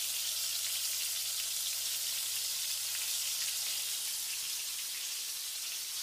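Floured chicken breast pieces shallow-frying in oil in a frying pan, a steady sizzle; the pieces are close to done.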